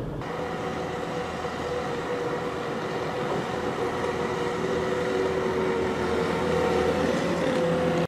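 Skid-steer loader with a snow pusher attachment, its engine running steadily under load as it pushes a pile of snow, gradually getting louder as it draws closer.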